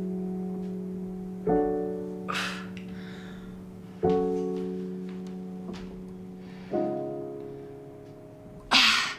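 Film score: slow piano chords struck about every two and a half seconds over a steady low held note, each chord left to ring and fade. A short hissing swell comes near the end.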